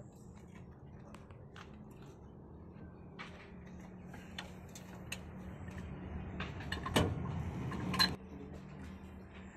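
Hand work on an old heavy horizontal diesel engine before starting: scattered metallic clicks and ticks over a low steady hum, building to two loud clanks a second apart near the end.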